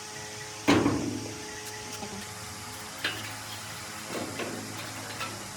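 A loud knock about a second in over a steady low hum, followed by a few lighter clicks and knocks.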